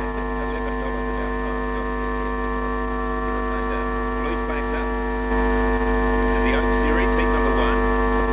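Steady electrical mains hum, a stack of unchanging tones, that gets louder about five seconds in. Faint short high cries sound over it in the second half.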